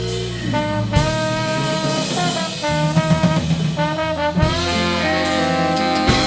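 Live klezmer punk band playing, with horns (trombone and saxophone) carrying a melody that slides between some notes, over bass and drum kit with occasional accented drum hits.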